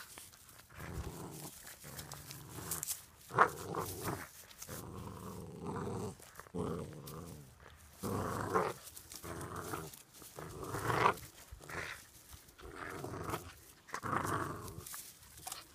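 Pitbull puppy growling in a string of short growls while tugging and hanging on a braided rope toy.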